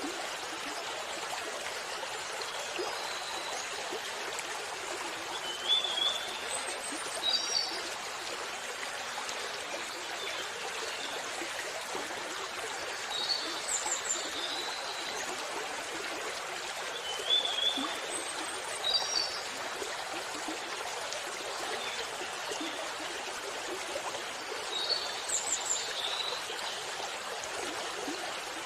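Steady rush of a waterfall, with a bird chirping in short bright phrases every few seconds over it.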